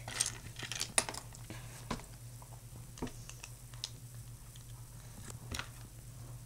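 Plastic Lego bricks clicking as pieces are handled and pressed together: a string of small, scattered clicks over a low steady hum.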